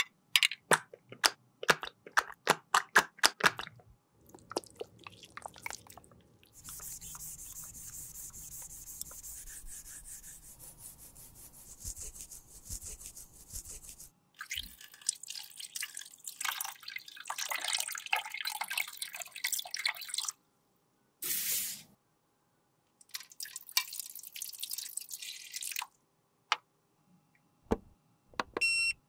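Close-up handling sounds in an aluminium tray: a quick run of sharp taps and clicks, then a steady hiss lasting about seven seconds, then a small brush swishing and dabbing through liquid in the tray, in uneven spurts with short pauses.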